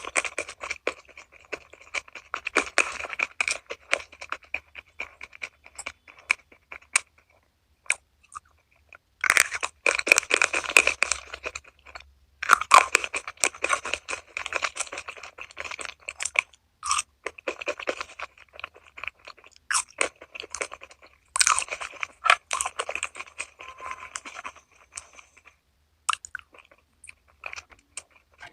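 Close-up crunching and chewing of crispy food, in runs of dense crackling bites broken by short pauses, thinning out near the end.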